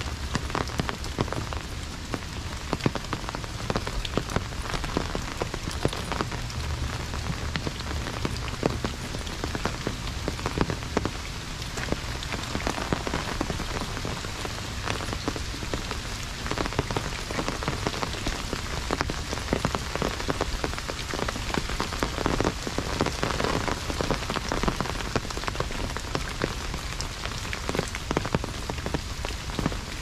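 Heavy rain falling and drumming on an umbrella overhead: a dense, steady hiss thick with countless close drop impacts.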